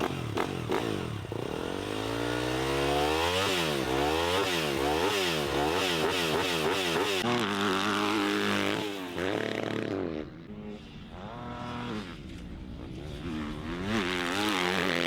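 Yamaha YZ250F four-stroke single-cylinder engine through an FMF titanium exhaust, revved in quick repeated blips that rise and fall about once a second, then held at steadier revs. It drops quieter about ten seconds in and comes back up loud near the end.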